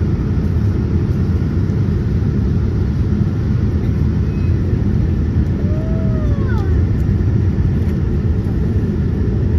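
Steady low rumble of engine and airflow noise inside the cabin of a Boeing 787-9 descending on approach.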